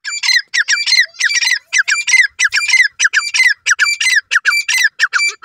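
A francolin (teetar) calling loudly: a fast, steady series of short calls, each a quick downward-sliding note, about three a second, which stops abruptly near the end.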